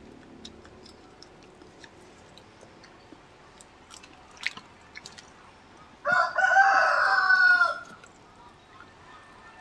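A rooster crows once, about six seconds in, for under two seconds, ending on a slightly falling note; it is by far the loudest sound. Around it are faint scattered clicks and smacks of people eating with their hands.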